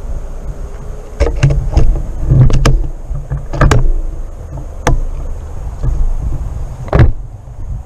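Handling and movement noise from someone walking with gear: a string of irregular knocks and clicks, the loudest near the end, over a low rumble of wind on the microphone.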